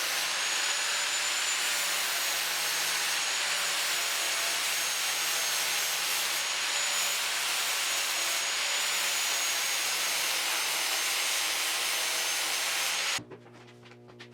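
Power tool abrading bare car-body sheet metal, running steadily with a thin high whine over a hiss. It cuts off suddenly near the end.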